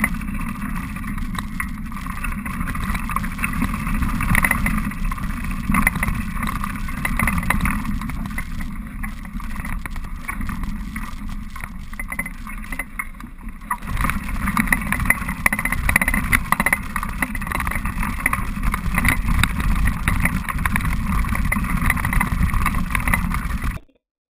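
Riding noise from a touring bike on a rough grass track: wind rushing over the bike-mounted microphone and the bike rattling along. The sound runs loud and unbroken, then cuts off suddenly near the end.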